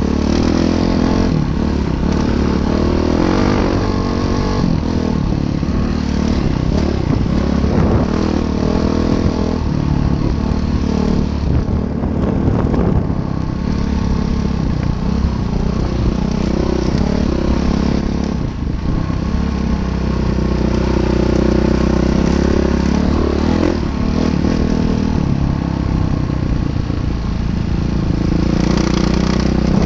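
Train crossing a railway bridge: a steady, loud engine drone with clattering and scraping from the wheels and cars.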